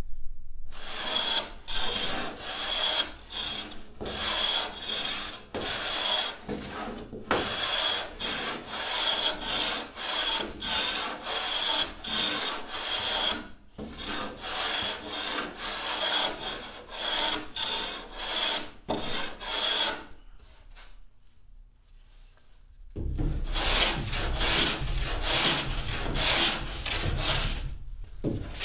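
Sharp hand plane shaving a plywood edge down flush with the chine, in quick repeated strokes, each with a high, ringing hiss. The planing stops for about three seconds past the two-thirds mark, then starts again.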